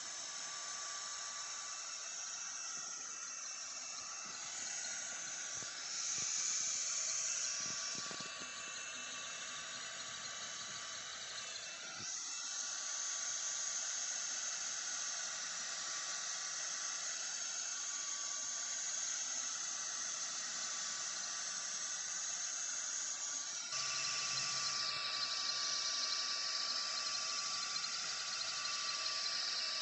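Sculpfun S30 Pro diode laser engraver running while it engraves plywood: a steady airy hiss from its air assist with a thin steady whine. The sound grows louder in steps, a little before halfway and again near the end.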